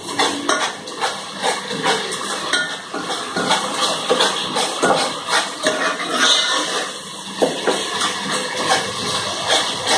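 Metal spoon scraping and knocking irregularly against the sides and bottom of an aluminium cooking pot as a masala is stirred, over the sizzle of the masala frying in oil.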